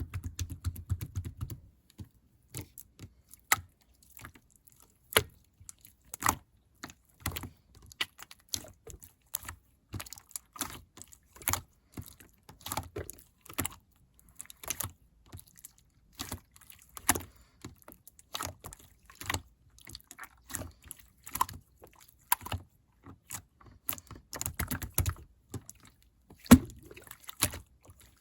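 Slime being played with by hand: squished and poked, giving a run of irregular clicks, about one or two a second.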